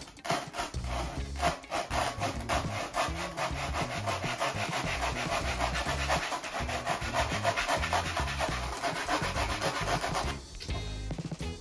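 3D-printed plastic handsaw sawing through a block of styrofoam with quick, even back-and-forth strokes. The strokes stop about a second before the end.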